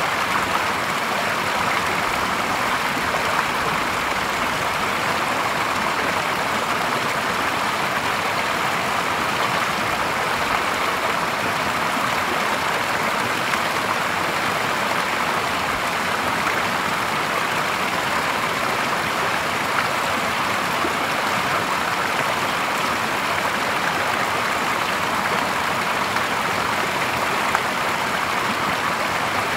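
Clear spring-fed stream water steadily splashing and gurgling as a small spill pours over a low log into a shallow pool.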